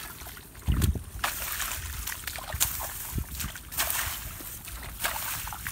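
Splashing and sloshing in the shallow muddy water of a flooded rice paddy as a person wades and works a hand hoe and his hands through it. Irregular splashes, with a heavier one about a second in.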